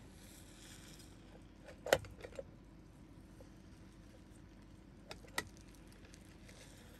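A few short, sharp clicks or knocks over a faint steady background: a loud one about two seconds in with two smaller ones just after, then another pair a little past five seconds.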